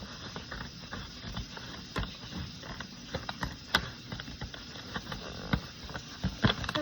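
Scissors cutting through a large bag: a run of irregular crisp snips and clicks with rustling in between.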